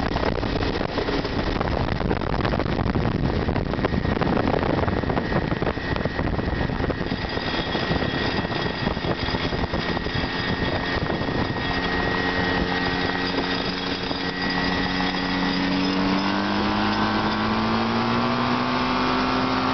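Challenger II ultralight's engine and pusher propeller running as the plane rolls over a grass strip. A rough, noisy rumble gives way to a steadier engine note about a third of the way in, and the note rises a little in pitch near the end.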